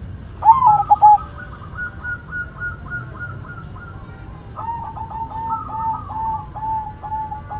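Zebra dove (perkutut) cooing. A loud burst of quick notes comes about half a second in, followed by softer runs of short staccato coos. Near the end these settle to about three notes a second.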